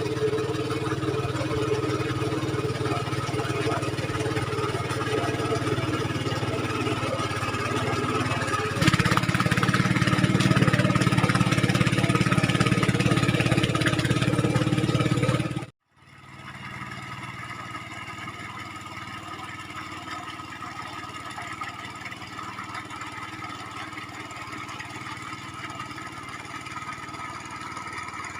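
Mini tractor engine running steadily, then louder about nine seconds in. It cuts off abruptly near sixteen seconds, and after that a quieter steady engine sound runs on.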